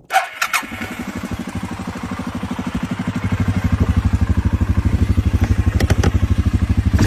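Suzuki KingQuad 750 ATV's big single-cylinder four-stroke engine running at a low, even idle-speed thump of about ten beats a second, after a few clicks at the start; it grows louder over the first three seconds and then holds steady.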